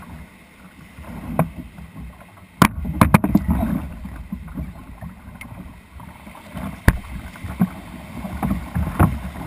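Kayak moving through shallow surf: a low wash of water sloshing around the hull. Sharp knocks on the kayak break in, a quick cluster about three seconds in and single ones later.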